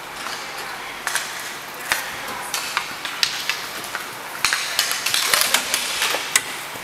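Inline roller hockey play: sharp clacks of sticks striking the puck and each other, over the hiss of skate wheels rolling on the rink floor. The clacks come thicker in the last couple of seconds.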